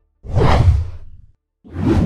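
Two whoosh sound effects accompanying an animated logo. The first begins about a quarter second in and lasts about a second. A second, shorter whoosh comes near the end.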